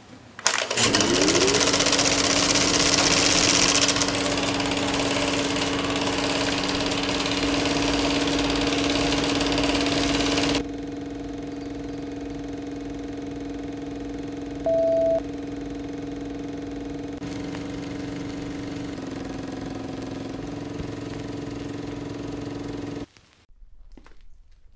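An engine starts with a short rise in pitch, then runs steadily. The sound drops to a lower, steadier level about ten seconds in. A single short beep sounds about midway.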